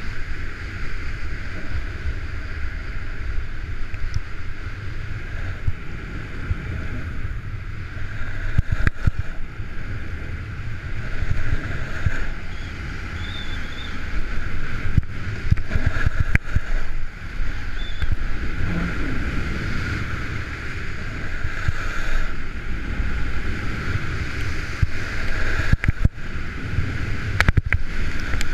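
Wind rumbling over the camera's microphone during a fast ski run, with the steady hiss of edges carving groomed corduroy snow swelling and fading through the turns, and a few brief knocks.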